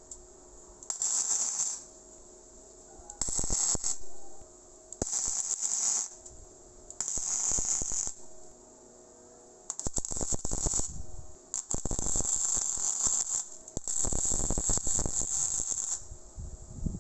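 Arc welding on square steel tubing in short runs: seven bursts of arc noise, each about one to two seconds long, with short pauses between them. The last two runs are the longest.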